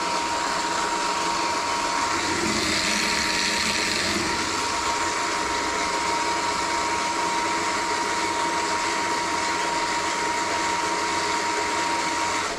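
Sur-Ron electric dirt bike motor spun by its controller during a Hall sensor autotune: a steady electric whir at constant speed with a thin high whine, cutting off abruptly at the end as the calibration finishes.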